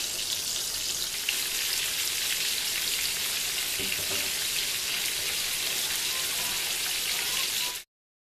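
Shell-on prawns sizzling and crackling as they fry in hot oil in a frying pan, with a few faint knocks about four seconds in. The sizzle cuts off abruptly near the end.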